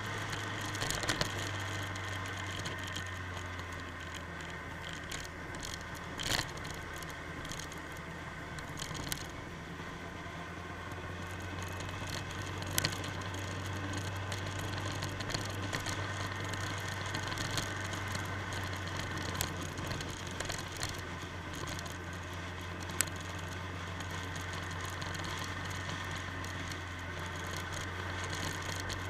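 A motorcycle running at steady road speed, heard from a camera mounted on the bike: a constant low engine drone under road and wind noise. A few sharp clicks and rattles break in now and then.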